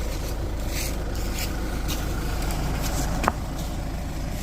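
Kia Sorento's diesel engine running steadily at low speed as the SUV crawls over rough off-road ground, with scattered clicks and one sharp knock a little over three seconds in.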